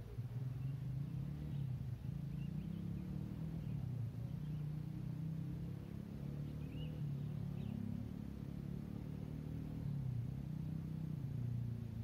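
A motor vehicle's engine running steadily: a low hum whose pitch wavers slightly, with faint bird chirps above it.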